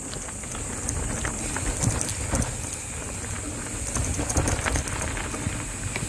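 Mountain bike rolling over a rough dirt and gravel trail: a continuous crunching, rattling noise from the tyres and bike, with scattered knocks and a low rumble, under a steady high hiss.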